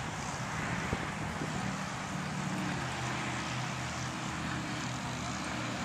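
A steady, low engine drone with a hiss of noise over it. There is one short tap about a second in.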